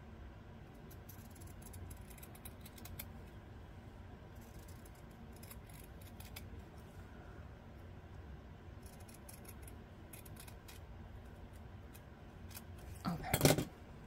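Titanium scissors snipping through fabric in short runs of quiet blade closes. A brief, louder clatter comes near the end.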